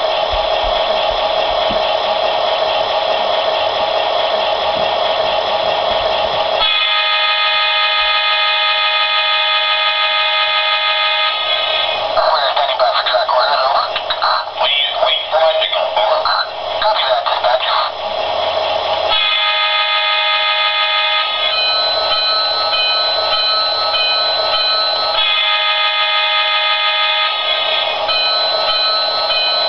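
A Lionel model diesel locomotive's onboard electronic sound system playing its startup sequence through a small speaker. It runs through a series of recorded sounds: a steady noisy stretch, then held multi-tone sections, a fluctuating chatter-like stretch in the middle, and more held tones with a steady repeating high tone near the end.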